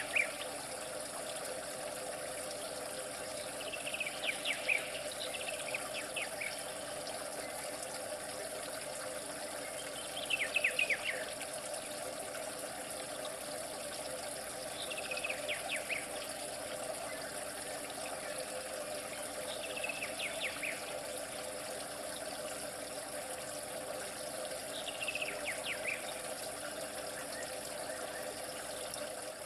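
Steady hiss of running water with a bird's short phrase of quick descending chirps repeating about every five or six seconds.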